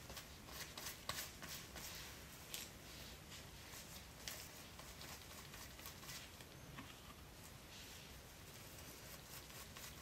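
Faint, irregular soft swishes and clicks of a tint brush working hair dye through a section of hair, with gloved fingers rustling against the strands; the strokes thin out after about halfway.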